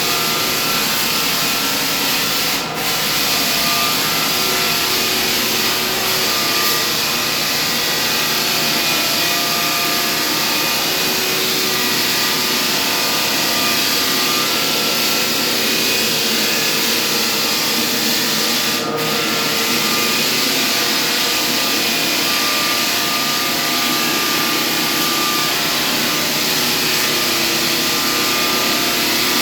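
Floor sanding machine running steadily, its abrasive grinding across a hardwood floor, with two brief dips in the noise, about 3 seconds in and about 19 seconds in.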